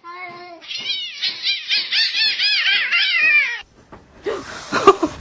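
A cat mewing in a fast string of short, high-pitched mews, about four or five a second, that cuts off suddenly after about three and a half seconds. A sharp knock follows near the end.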